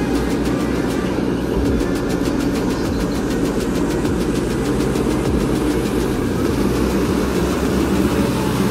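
Sunward mini excavator's diesel engine running steadily, with a fast even clatter.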